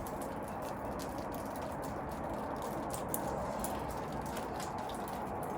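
Steady outdoor background noise with faint, scattered ticks and chirps.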